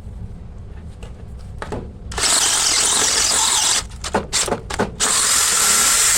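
Drill driving a Reed Clean-Ream socket reamer, cutting old pipe out of a 1-1/2-inch fitting so the fitting can be reused. It starts about two seconds in with a run of a second and a half, then a few short quick bursts, then another steady run near the end.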